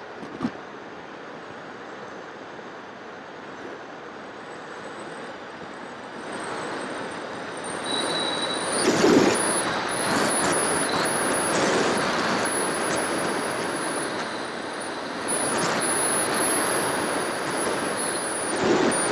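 An FPV model plane's motor and propeller whine steadily over airflow rushing past the onboard camera. The rush grows louder about six seconds in, the high whine comes in about two seconds later, and a few gusts buffet the microphone.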